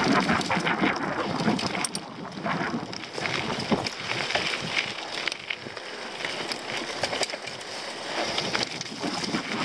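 Mountain bike riding fast downhill on a forest dirt trail: tyres rolling and crunching over soil, stones and dry leaves, with frequent rattles and knocks from the bike as it hits bumps, and wind on the microphone.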